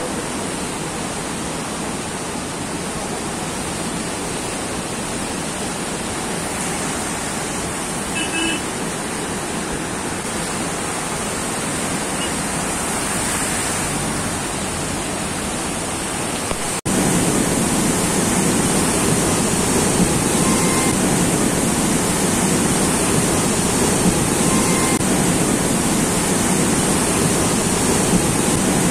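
A flash-flooded river rushing in a steady, unbroken noise of churning water. It becomes louder about two-thirds of the way in, where the muddy torrent surges around a bridge pier.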